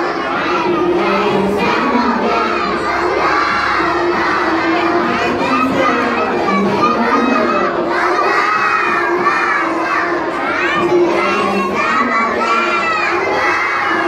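A large group of young children singing loudly together in an action song, many voices at once.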